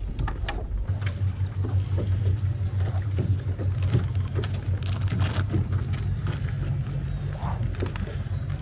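Small petrol outboard motor on an inflatable dinghy, running steadily. Its low hum grows stronger about a second in, with scattered short knocks over it.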